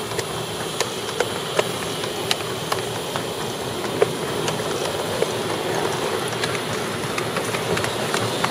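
A 7¼-inch gauge miniature Black 5 steam locomotive running with its train: a steady hiss and running noise, with irregular sharp clicks from the wheels on the track.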